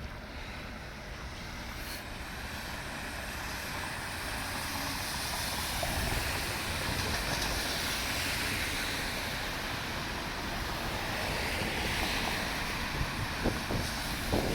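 Wind buffeting the microphone as a steady low rumble, under a hiss of outdoor storm noise that swells a couple of seconds in and holds. A few short knocks come near the end.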